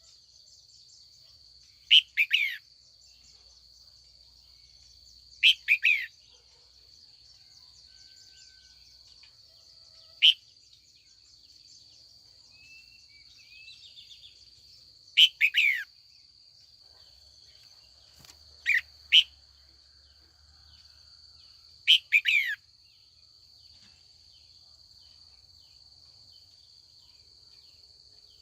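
Red-whiskered bulbul, a female calling to draw wild birds, giving short loud calls that fall in pitch, about six of them a few seconds apart. A steady high insect drone runs underneath.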